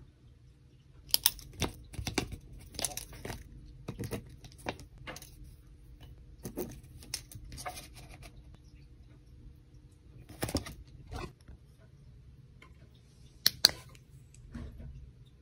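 A glossy paper leaflet being handled, crinkling and rustling in a string of short strokes, then two sharp clicks near the end.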